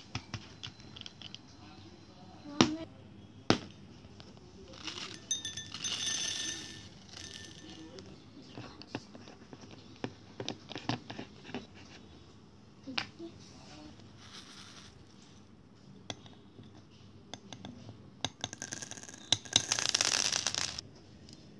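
Small glass jars with plastic caps being handled in a clear plastic storage box: scattered clicks and clinks, with two sharper knocks a few seconds in. Near the end, a plastic bag of beads crinkles loudly for a couple of seconds.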